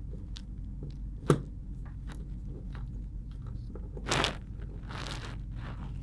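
Small screwdriver tip poking and scraping at a glued-down M.2 SSD inside an opened laptop. Scattered small clicks and scrapes, with a sharp tap about a second in and a louder scrape about four seconds in.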